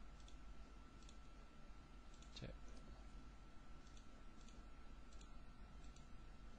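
Faint computer mouse clicks, a handful of single clicks spaced irregularly, over a faint steady high tone.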